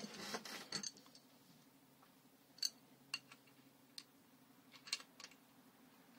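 Water-pump pliers and an adjustable wrench handling and gripping a brass quick-connect fitting on a pressure-washer hose: light rustling at first, then about five sharp metal clicks.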